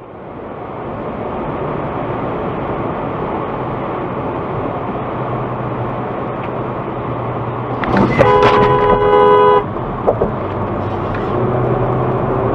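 Steady road and tyre noise of a car driving on a highway, heard from inside the car through a dashcam. About eight seconds in, a car horn blares for about a second and a half, followed by a brief second blip.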